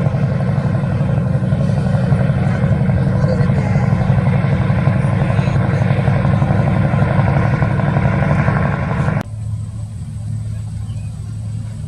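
Ship's engine running with a loud, steady, low drone as the vessel leaves the harbour. About nine seconds in it cuts off abruptly to a quieter engine drone.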